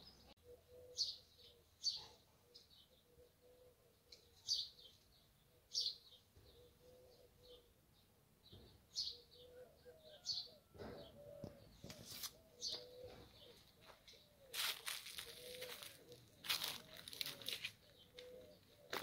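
Small birds chirping in short, high calls every second or so, over a dove cooing low and steadily in the background. A few loud bursts of rustling noise come in the second half.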